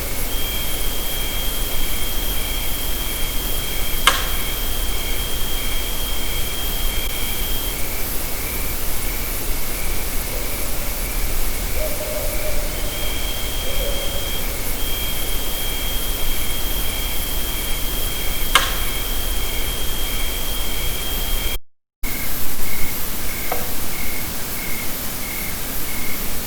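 Heavily amplified night forest ambience: a steady hiss with insects trilling and chirping in a steady rhythm. Two sharp pops come about 14 seconds apart, and near the end the sound cuts out briefly.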